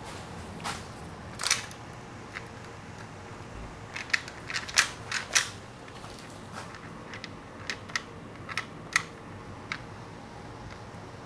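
Irregular light clicks and clinks of metal engine parts and hand tools being handled, with a busier run of them about four to five seconds in.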